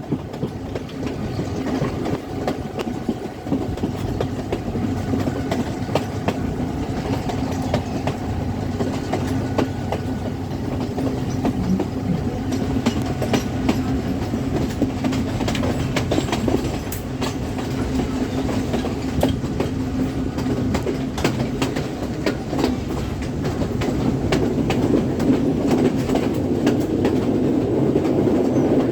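Colombo–Badulla express train running along the line: a steady rumble from the carriages with a continual clickety-clack of wheels over the rail joints, growing a little louder near the end.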